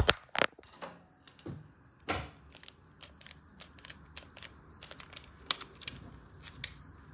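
Irregular sharp clicks and knocks, a few louder ones among many faint ones, over a faint steady high tone.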